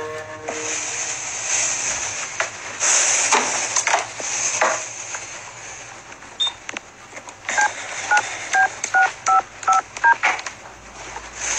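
Rustling with a few clicks, then, about seven and a half seconds in, a quick run of about seven touch-tone beeps as a number is keyed on a telephone keypad.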